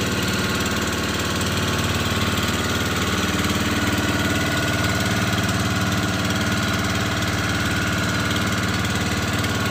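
Fishing boat's engine running steadily at an even speed, with a rapid, regular firing beat.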